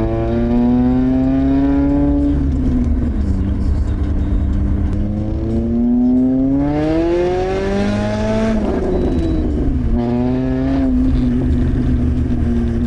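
Lada Priora's four-cylinder petrol engine with the muffler removed, loud open exhaust while driving: the pitch climbs under acceleration, falls back at a gear change, climbs again harder about six to eight seconds in, drops at the next shift and then holds steady.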